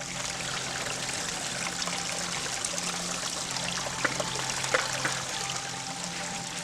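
Water trickling steadily, with a few sharp clicks about four and five seconds in.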